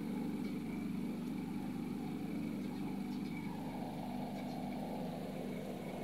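A motor running steadily with a low, even hum.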